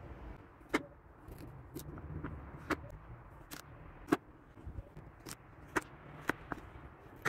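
Chef's knife chopping peeled carrots on a wooden cutting board: about ten sharp knocks as the blade cuts through and strikes the board, at uneven intervals.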